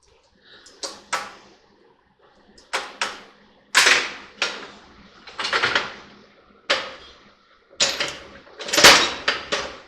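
Hammer blows on a new U-joint in a truck's front driveshaft yoke: about a dozen sharp metal strikes at irregular intervals, some in quick runs, with short ringing. The blows seat the joint's caps and snap rings and free any bind in the joint.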